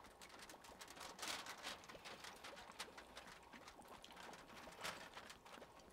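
Faint pouring of sauce from a bottle into a foil tray, heard as soft, irregular ticks and clicks over near silence.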